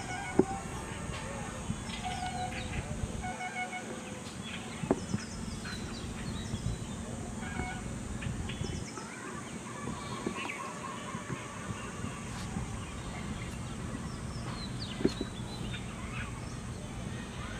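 Birds calling again and again in short chirps and honks over steady outdoor noise, with three sharp knocks: one just after the start, one about five seconds in and one near fifteen seconds.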